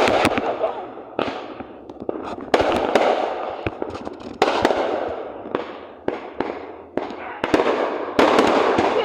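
Fireworks going off one after another, about every one to two seconds: each starts with a sharp bang and trails off in a long, fading crackle.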